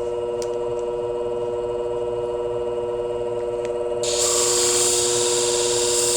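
Shear-sharpening machine's motor running with a steady hum. About four seconds in, a shear blade goes against the 400-grit abrasive and a loud, even grinding hiss joins the hum.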